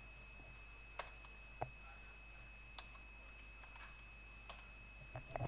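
A handful of separate computer mouse and keyboard clicks, spaced about a second apart with a small cluster near the end, over a faint steady high-pitched whine.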